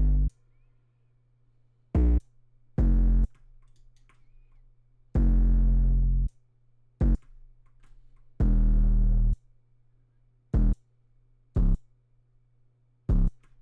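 808 bass notes sounding one at a time at uneven intervals, some held about a second and others short blips, as the bass line is laid into a trap beat.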